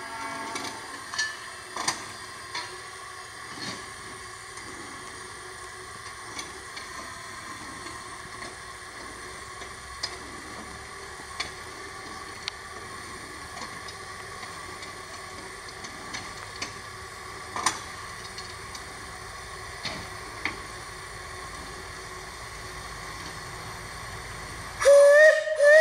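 A 15-inch-gauge live steam locomotive standing with a steady hiss of steam and scattered light metallic clinks. Near the end its steam whistle starts blowing loudly, a chord of several steady pitches.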